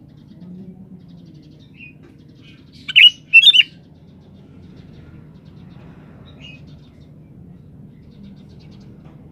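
Sooty-headed bulbul (kutilang) calling. A loud burst of two quick whistled phrases comes about three seconds in, with a few short faint chirps around it. Under it runs a low steady background hum.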